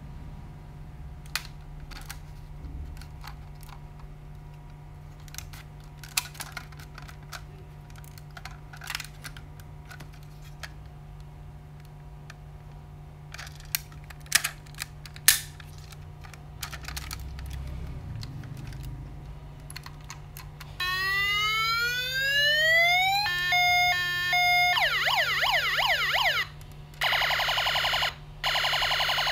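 Scattered clicks and taps as a toy airport fire truck is handled, then the toy's electronic siren sounds for the last third. It goes as a rising whoop, a few beeping steps, a fast warble, and a steady wail that cuts out twice.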